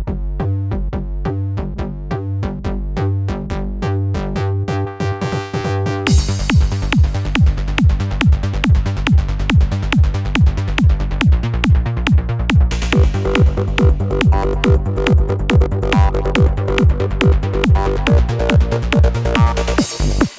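Roland SH-201 synthesizer playing a trance preset: a repeating sequenced bass-and-synth pattern, joined about six seconds in by a steady driving drum beat with bright high noise on top.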